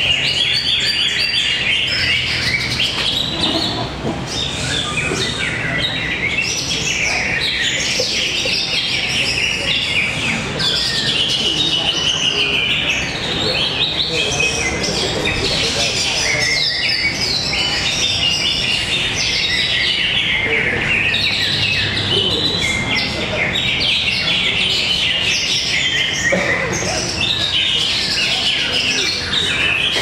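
Several caged greater green leafbirds (cocak ijo) singing against one another in a contest: a dense, overlapping, unbroken stream of high chirps, whistles and trills.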